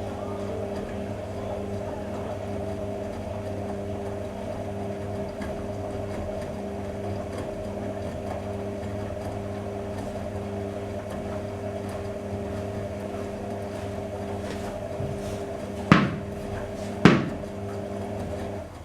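AEG Öko Lavamat Edition 2000 washing machine running with a steady hum. Two sharp clicks come near the end, and the hum stops shortly after them.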